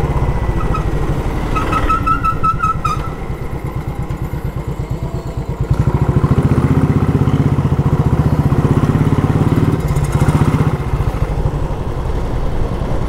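Motorcycle engine running steadily under way, getting louder from about six seconds in, with a quick run of short high beeps around two seconds in.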